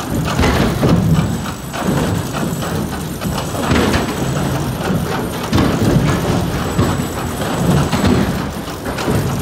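Log-processing machinery running, with irregular heavy thuds and clatter about once a second.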